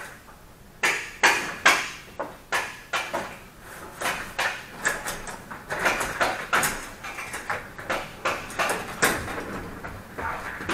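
Swivel office chairs being pushed and shifted about: irregular knocks, clatters and scrapes of chair parts, several a second.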